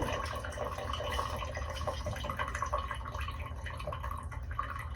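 Water trickling and dripping in the bus's newly plumbed water system as it is run for a leak test, with an irregular patter of small drips over a steady low hum.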